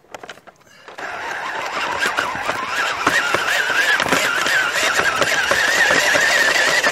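Nikko RC tip truck's electric drive motor and gearbox starting up about a second in, then running with a rattle and a wavering high whine.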